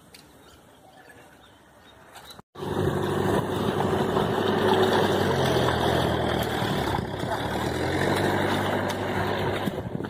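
Faint outdoor background, then, after a sudden cut about two and a half seconds in, a steady engine hum that drifts slightly up and down in pitch.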